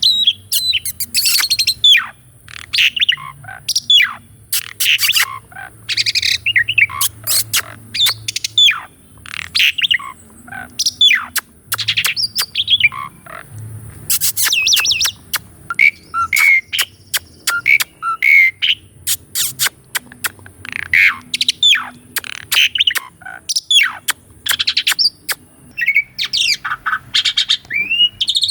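Asian pied starling (jalak suren) singing a long, varied song: quick whistles, rising and falling slurred notes and harsh squawky notes, one short phrase after another with brief gaps.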